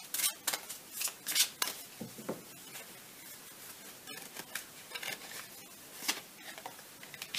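A deck of Lenormand cards being shuffled and handled, with short papery swishes and flicks, most of them in the first two seconds and a few more around six seconds in.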